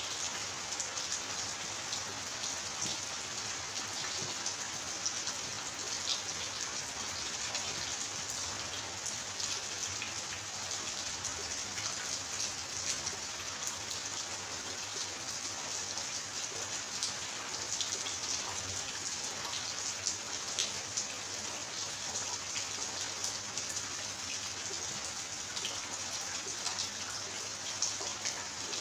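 Steady rain falling: an even hiss of water with many small drop ticks.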